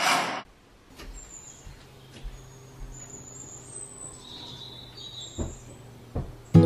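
A short whoosh at the very start, then a quiet room with a low hum and faint high bird chirps, and two soft thumps near the end as sofa cushions are set down.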